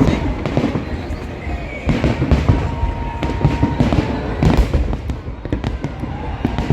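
Fireworks display: aerial shells bursting in many repeated bangs over a continuous low rumble, with music playing underneath.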